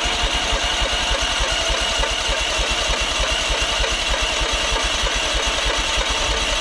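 Electric starter cranking the petrol engine of a Landa hot water pressure washer: a steady high whine over a fast, even chugging of about ten beats a second for several seconds, the engine turning over without catching, then the cranking stops just after the end.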